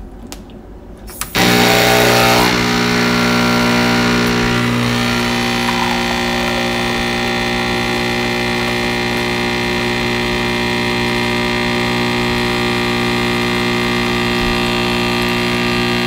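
Crux 15-bar espresso machine's pump switching on about a second in and running with a steady buzzing hum while it pushes espresso through the grounds. A little louder for its first second, then even.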